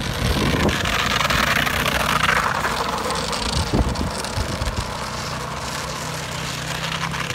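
ATV engine running while towing a sofa, with a louder rushing noise over the first couple of seconds, then settling to a steady, even tone in the second half.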